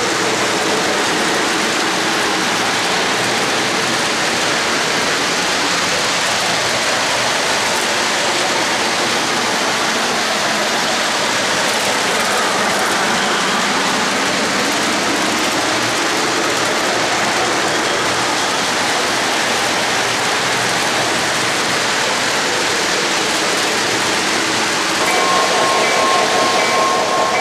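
O-gauge model freight cars rolling past on three-rail track: a steady, even rushing noise of metal wheels on the rails. Near the end a steady pitched tone joins in.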